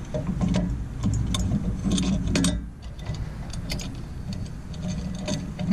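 Irregular metallic clicks and clinks of hand tools and brake parts being handled while working on a truck's brake caliper, over a low steady background rumble.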